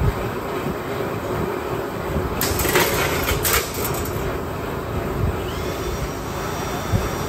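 Sheet steel being trimmed on a Beverly shear: a short run of sharp metallic cutting sounds about two and a half to three and a half seconds in, over a steady shop rumble.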